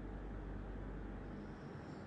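A man snoring in his sleep, a low rough rasp.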